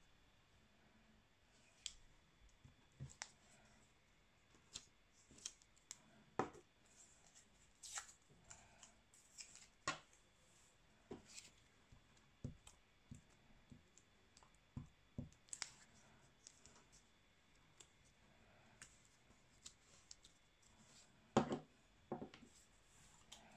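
Sparse, quiet clicks and taps from hands working a glue stick and pressing torn pieces of paper onto a sheet. The loudest pair of clicks comes near the end.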